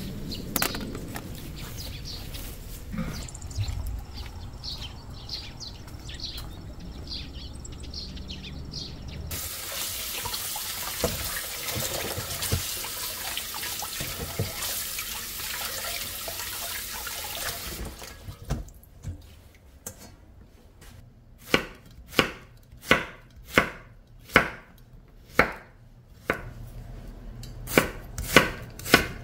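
A kitchen tap runs into a stainless steel bowl in a steel sink while vegetables are washed in it, an even rush of water that stops suddenly about 18 seconds in. Then a kitchen knife chops an onion on a wooden cutting board in single sharp strokes, about one or two a second. Before the water, only faint outdoor sounds with a few short high clicks.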